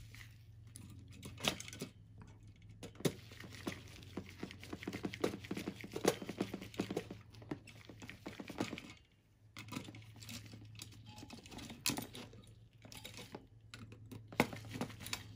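Phillips screwdriver turning out the screws that hold the fan to a graphics card, with light irregular clicks and scrapes of metal on plastic, over a faint steady low hum.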